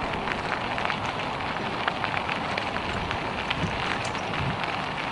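Bicycle tyres rolling over a gravel rail-trail surface: a steady crunching crackle with many small clicks.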